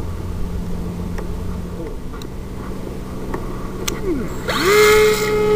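Brushless electric motor of a RiteWing Zephyr II flying wing (NTM 35-42A 1250Kv) powering up about four and a half seconds in: the pitch dips, then rises quickly into a steady high whine of the spinning propeller. Before that there is only a steady hiss and low hum.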